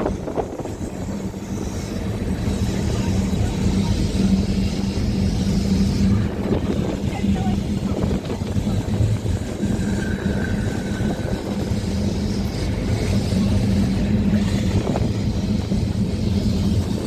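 Boat tram 600, an open-top tram, running along the line, heard from on board: a steady low motor hum over a continuous rumble of wheels on track.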